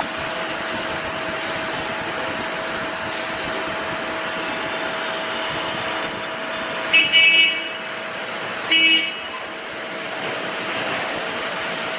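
Steady noisy background with a constant hum, broken twice by short horn toots, about seven and about nine seconds in.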